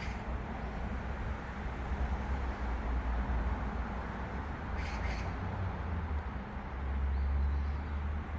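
Outdoor background noise: a steady low rumble that grows louder near the end, with two brief clicks about five seconds in.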